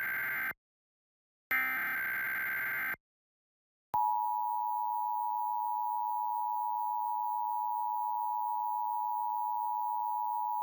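Emergency Alert System signal: the tail of one digital header burst, then a second full burst of about a second and a half, both buzzy and data-like. About 4 s in, the steady two-tone EAS attention signal starts and holds. This is the sequence that opens an EAS alert, here a Required Monthly Test.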